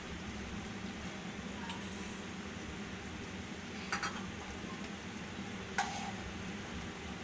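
A spoon stirring chicken and cream in a steel karahi. There are two short clinks of the spoon against the pan, about four and six seconds in, over a steady low hum.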